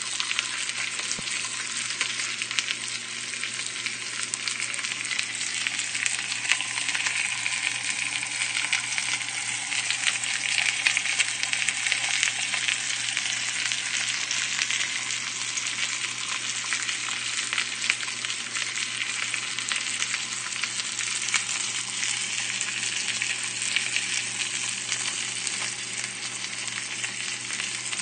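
A pork chop sizzling in a frying pan: a steady, dense sizzle full of small spattering pops.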